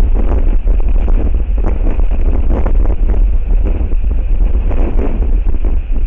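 Strong wind buffeting the microphone: a loud, steady low rumble with gusts that swell and fade.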